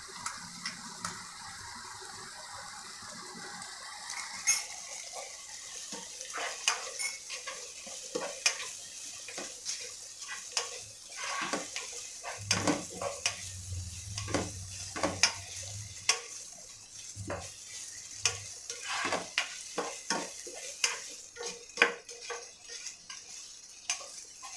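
Chopped onions and tomatoes sizzling in oil in a pan, stirred with a black spoon. The sizzle runs steadily at first; from about four seconds in, the spoon scrapes and knocks against the pan in irregular clicks.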